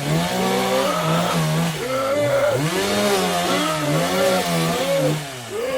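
Chainsaw engine revved up and down repeatedly, its pitch rising and falling several times.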